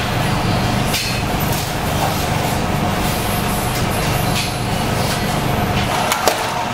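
Rotary rack oven running, its fan and motor making a steady hum with a faint steady tone over it. A sharp click about six seconds in as the oven door handle is taken hold of.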